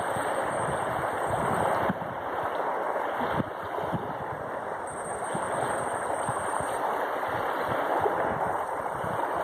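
Steady rush of small lake waves lapping on a sandy shore, with some wind.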